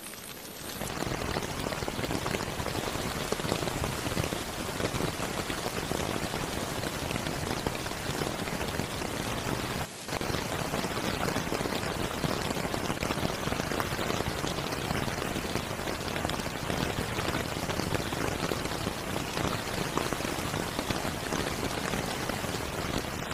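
Steady rain falling on the jungle undergrowth around the tent: a dense, even hiss of drops that sets in about a second in, with a brief drop-out near the middle.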